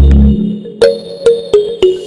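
Electronic background music on synthesizer. The bass and beat drop out about a third of a second in, leaving three short plucked notes roughly half a second apart.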